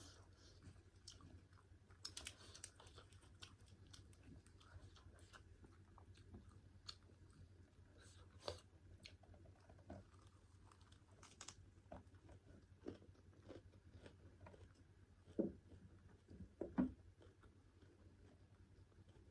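Close-up chewing and mouth sounds of someone eating pork curry and rice, with many small wet clicks. Two louder dull knocks come near the end.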